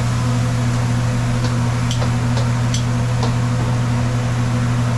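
A steady low hum, unchanging throughout, with a few faint sharp clicks scattered through it.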